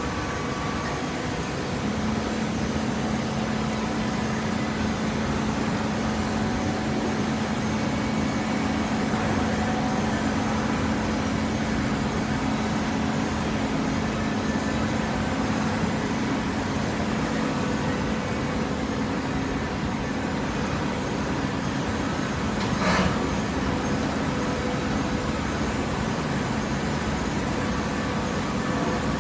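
Hydraulic cardboard baler running: a steady machine drone with a hum that comes in about two seconds in, and one sharp knock a little before the end.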